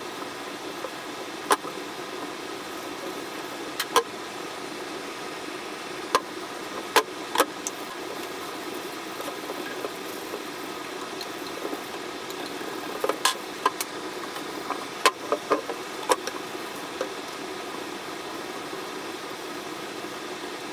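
A steady machine hum, like a motor running, with scattered sharp clicks and ticks over it: a few in the first eight seconds and a cluster about two-thirds of the way through.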